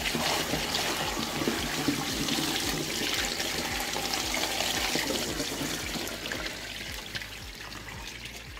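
Dirty water draining from a carpet extractor's recovery tank through its dump hose and splashing onto a floor drain grate. The pour thins and gets quieter toward the end as the tank empties to a trickle.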